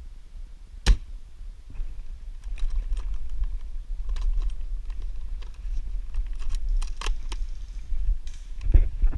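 A sharp click about a second in, then a long run of quick, irregular clicks and light rattles, over a steady low rumble such as wind or handling on a small camera microphone.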